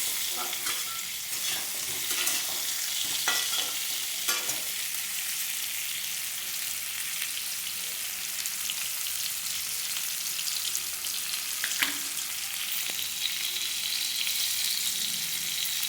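Diced potatoes frying in hot oil in a pan: a steady, high sizzle, with a few sharp clicks from the utensil stirring them.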